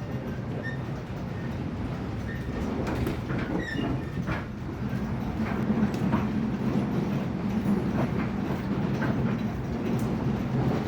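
Steady low rumble of a moving vehicle, with scattered light clicks and clatter.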